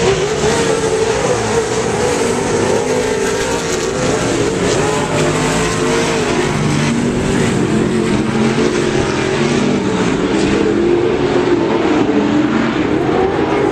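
A pack of off-road race trucks racing on a dirt track, several engines revving at once, their pitches rising and falling over a loud, continuous drone.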